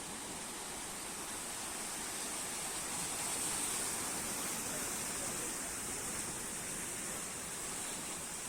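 Sea waves washing onto the shore: a steady rushing noise that swells slightly a few seconds in.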